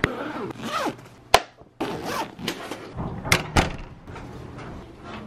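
Luggage and door handling: a zipper run, sharp clicks and thunks from a suitcase, then a hotel room door's lever handle and latch clicking, with two knocks a little after three seconds in.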